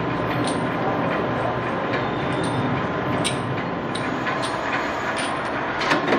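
Flywheel-driven mechanical power press running with a steady drone and a constant hum, with a sharp metallic clank about once a second as the press strokes on steel sprocket parts. The loudest clanks come near the end.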